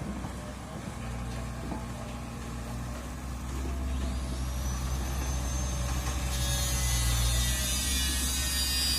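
Excavator's diesel engine running steadily, growing louder about four seconds in as a high whine rises and then holds; a hiss joins it a couple of seconds later.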